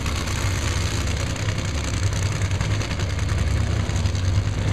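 Two nitromethane-burning Funny Cars' supercharged V8 engines idling at the starting line, a steady run of rapid pulses with no revving.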